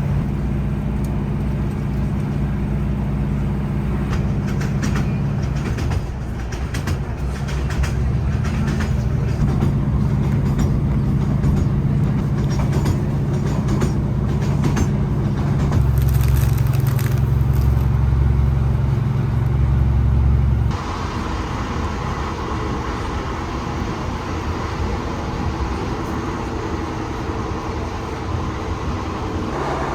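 Diesel train running, heard from inside the carriage: a steady low engine drone with many short rattles and clicks. The engine note shifts a couple of times, and about two-thirds of the way through the sound changes abruptly to a lighter, higher running noise.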